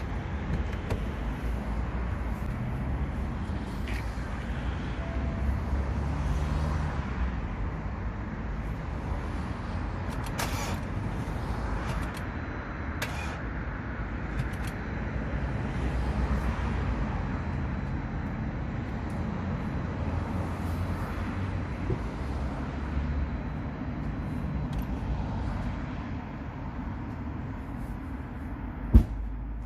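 Steady low hum of a car engine running. A few light clicks come through, then one sharp knock near the end.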